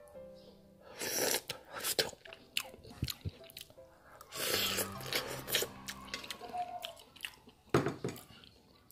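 Short knocks, clicks and rustling handling noises, with a few louder bursts, over faint background music.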